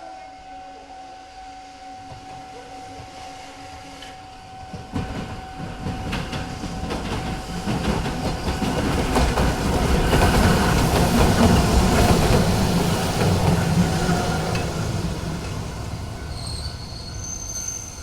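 A Randen (Keifuku Electric Railroad) tram-style train passing over a level crossing. A steady tone from the crossing warning signal sounds first; the train's running noise then builds from about five seconds in, is loudest around the middle, and fades, with a brief high wheel squeal near the end.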